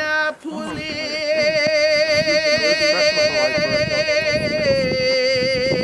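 A single voice singing or chanting one long held note with a strong, even vibrato, stepping down slightly in pitch near the end.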